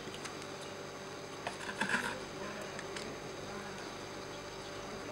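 Faint handling sounds of a Nikon 50mm f/1.8 lens and its plastic caps: a few small clicks and a short rustle about two seconds in, over a steady background hum.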